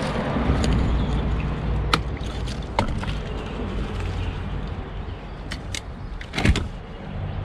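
Sounds from a kayak on the water: a few sharp knocks and clicks of gear or a paddle against the hull, the loudest about a second before the end, over a steady low rumble.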